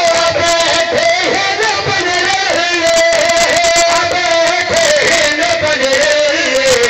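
Men singing a qaseedah, a sung devotional praise poem, into microphones over a PA: a lead voice with other men's voices chanting along, holding long drawn-out notes.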